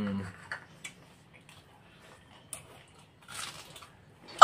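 Quiet eating by hand: a few faint clicks of fingers and bowls and a short soft wet sound as water-soaked rice (pakhala) and side dishes are picked up and eaten.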